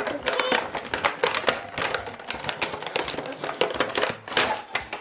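Packaging crinkling and rustling as an item is pulled out of a toy kit box: a dense, irregular run of small crackles and clicks.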